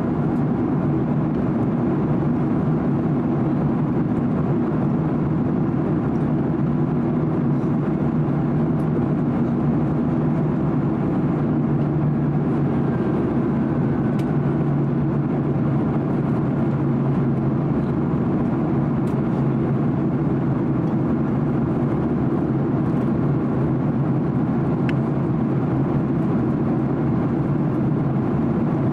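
Steady cabin noise inside a Boeing 767-300 in flight: a constant roar of engine and airflow noise, strongest in the low range, unchanging throughout.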